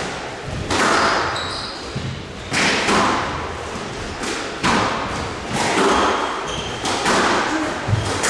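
Squash rally: a squash ball being struck by rackets and hitting the court walls, sharp hits about every one to two seconds, each echoing around a large hall, with short squeaks of court shoes between them.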